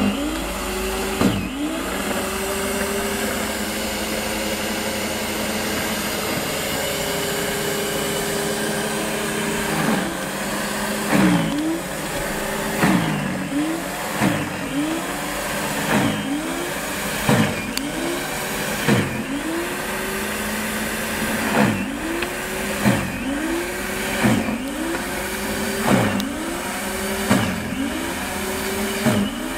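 Corded electric Stiga single-stage snow thrower running. Its motor whines steadily for about ten seconds, then the pitch sags sharply and recovers about every one and a half seconds, each time a little louder, as the auger loads up with snow on each push forward.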